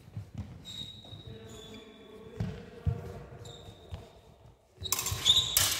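Fencers' footsteps thumping on a sports hall floor as they move, then about five seconds in a rapid flurry of loud clashes and ringing of steel rapier and dagger blades meeting.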